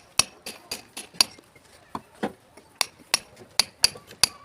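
Hard, sharp clinks of broken red brick pieces striking one another, about a dozen at uneven intervals, as they are picked out and tossed aside.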